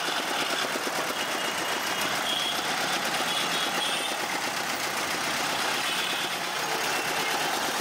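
Motor-driven sugarcane juice crusher running steadily, its ribbed steel rollers turned by a belt and pulley as cane is fed through and pressed, with a fast, even mechanical chatter.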